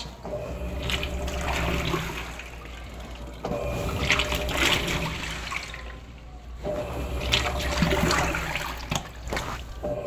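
Electrolux Turbo Economia LTE06 6 kg washing machine churning water in its tub, its motor humming in spells of a few seconds with short pauses between.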